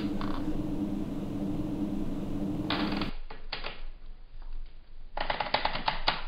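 Rapid mechanical clicking in irregular clusters, over a low steady hum that cuts off suddenly about three seconds in; a dense burst of clicks follows near the end.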